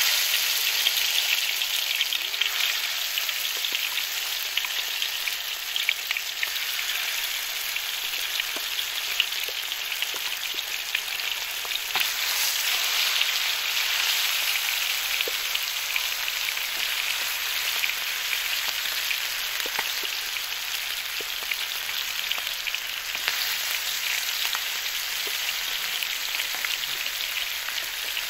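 Raw chicken drumsticks frying in hot oil: a steady sizzle that starts suddenly as the first leg goes into the pan, with small crackles and pops throughout as more legs are laid in.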